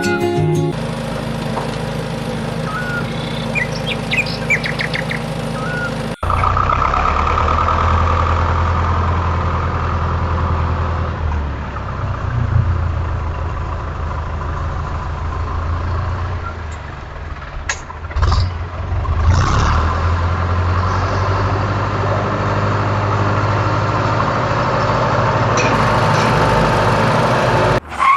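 A small motor, most likely the homemade mini tractor's, running with a steady drone, louder after about six seconds. Birds chirp in the first few seconds.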